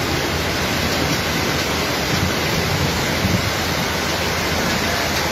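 Fast-flowing floodwater rushing through a street, a steady, dense wash of water noise without a break.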